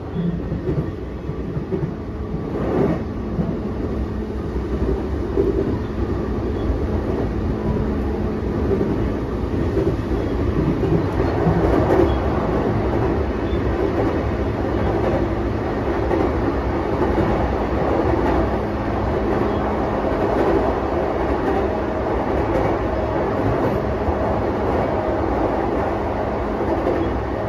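Interior running noise of a JR East E233 series 5000 electric commuter train car: a steady rumble of wheels on the rails, with a few clicks as the wheels cross rail joints.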